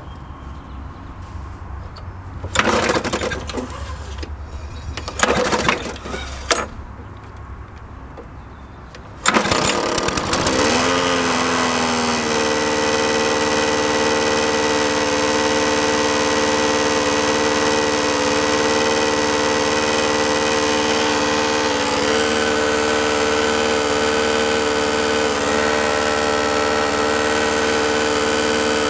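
Briggs & Stratton engine on a 1995 Powr Kraft self-propelled push mower: a couple of tugs on the pull-cord starter, then it catches about nine seconds in, picks up speed and runs steadily with a buzzing note. The owner calls the buzzing a really weird noise, notes that the mower shakes a little, and wonders if the crankshaft is bent.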